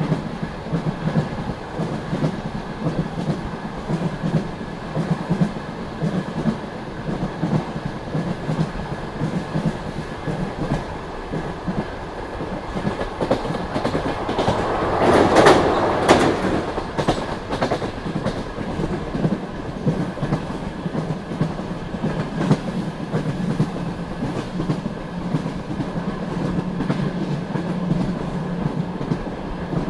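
Passenger train coach wheels clicking over rail joints with a steady rolling rumble as the train runs at speed. About halfway through, a louder rushing swell rises and fades over two or three seconds.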